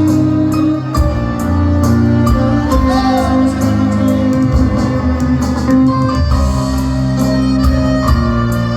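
Live cuarteto band music with a steady drum beat, a prominent bass line and sustained keyboard chords.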